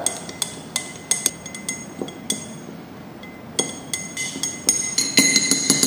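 Metal teaspoon stirring a dry spice mix in a glass tumbler: irregular clinks and taps of the spoon against the glass, some with a brief ring, coming faster and closer together in the second half.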